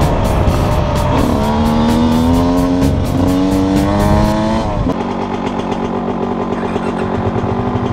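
GasGas EC125 two-stroke enduro motorcycle engine pulling along a trail, revs climbing and dipping with wind gusting on the helmet microphone. About five seconds in, the throttle closes and the engine drops to a lower, steady running note as the bike slows.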